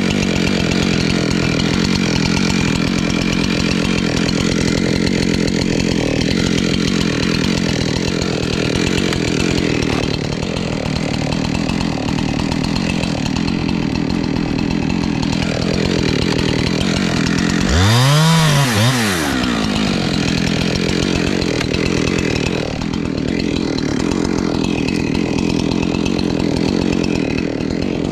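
Gasoline chainsaw engine running steadily at cutting speed. About two-thirds of the way through, a brief loud rise-and-fall sweep in pitch.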